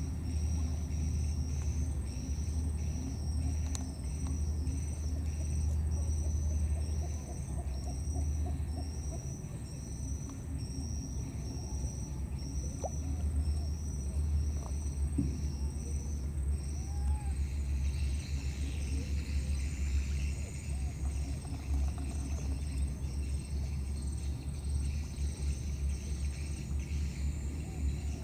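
Outdoor ambience: a steady low rumble under a short high chirp repeated a little more than once a second, which stops about two-thirds of the way in and gives way to a high, even buzzing like insects.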